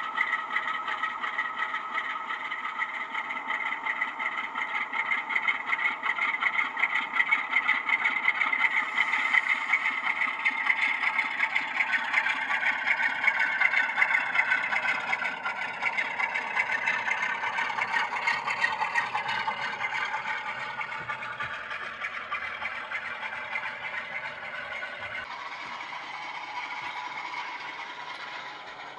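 Sound decoder in a model Class 47 diesel locomotive playing the Class 47's Sulzer diesel engine through a pair of small speakers. The engine runs steadily, then grows louder and changes pitch as the model pulls away, and eases back down near the end.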